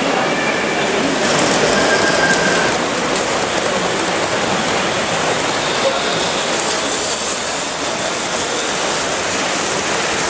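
Live-steam gauge 1 model of the LMS Turbomotive running along the track. Its steam turbine gives a steady hiss instead of chuffs, mixed with the rolling of the wheels. The hiss grows brighter about six to eight seconds in as the engine passes close.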